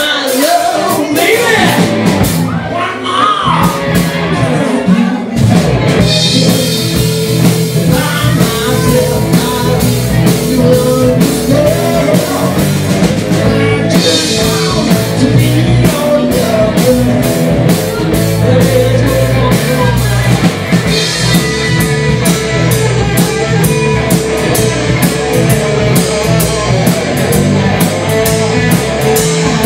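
Live rock band playing, with electric guitar and drum kit; the full band comes in about five seconds in.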